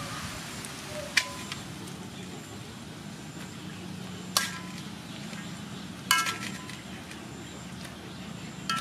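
Stir-fried beef noodles sizzling in a metal wok with a steady hiss. A metal utensil strikes the wok four times, a few seconds apart, each strike a short clang that rings briefly.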